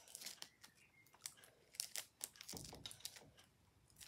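Faint, irregular crinkling and light clicks of something being handled, with a soft bump about two and a half seconds in.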